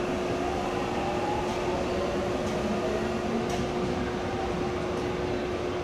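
ITX-Saemaul electric train's steady hum as it pulls out, with a constant tone underneath and a faint whine rising in pitch over the first two seconds.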